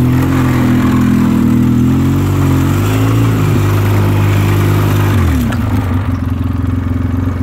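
Polaris Sportsman 700 Twin ATV's twin-cylinder engine running at a steady low speed. It rises slightly about three seconds in. A little over five seconds in it drops to idle.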